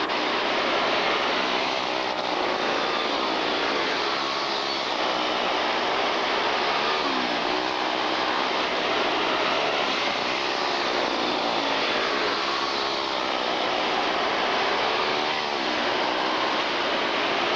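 A pack of quarter midget race cars running flat out on a dirt oval. Their small engines make a continuous whine whose pitch rises and falls again and again as the cars go through the turns and down the straights.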